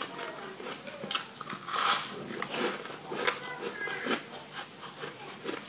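Bites and crunching of crumbly frozen sweet ice, a run of irregular crackles with one loud crunch about two seconds in.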